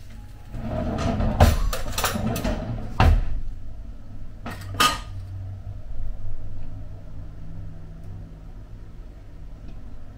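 Dishes and cutlery being handled at a kitchen counter: a run of clinks and knocks over the first three seconds, two more clinks about five seconds in, then only soft handling sounds.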